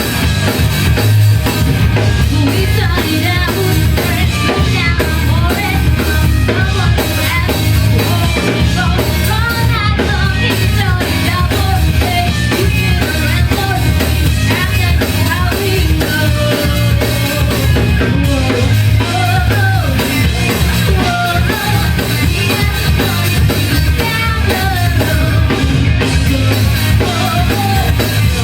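A live rock band playing a song, with a drum kit keeping a steady beat and a voice singing over it.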